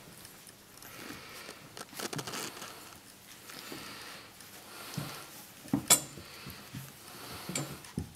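Three-week-old Leavitt bulldog puppies scuffling and crawling over each other close by, a run of soft rustles with scattered clicks and knocks, the loudest about six seconds in and another just before the end.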